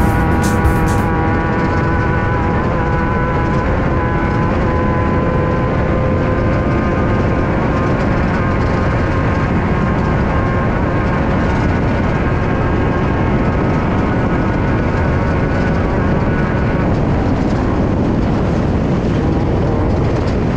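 Air-cooled 1600cc Volkswagen flat-four of a Class 5/1600 off-road race car running hard, heard from inside the car over steady road and wind noise. The engine pitch holds fairly steady, with only small rises and falls.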